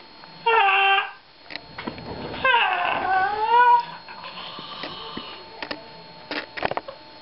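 A man imitating a cat: a short, level meow, then about two seconds in a longer meow that dips and rises in pitch. A few sharp knocks or clicks follow near the end.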